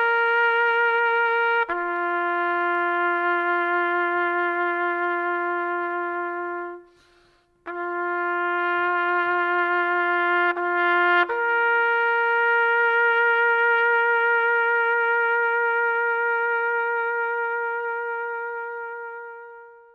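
Solo trumpet playing a slow tune in long held notes, with a short break about seven seconds in; the last note is held for about eight seconds and fades out.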